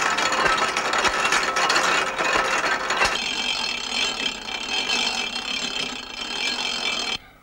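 Rope-making machine running, its gears and mechanism clattering in a dense, rapid ratcheting rattle. The sound changes character about three seconds in and cuts off suddenly near the end.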